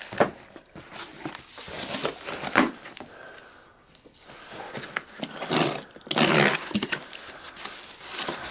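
Box cutter slitting packing tape on a cardboard shipping box, then the cardboard flaps being pulled open: a run of irregular scrapes, rips and rustles with a few sharp clicks, the longest rasp a little over six seconds in.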